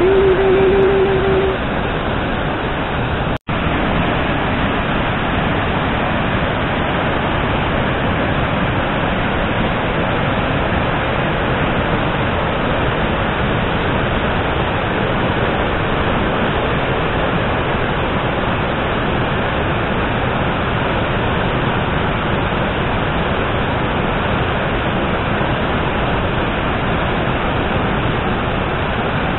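Steady rushing of the Curug Cikaso waterfalls pouring into the river below, a constant wash of falling water with a momentary gap about three and a half seconds in.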